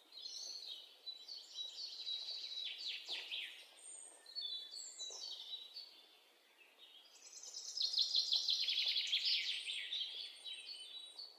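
Birds chirping and singing in quick, high, repeated notes, sparse at first, pausing briefly past the middle, then a denser run of chirping.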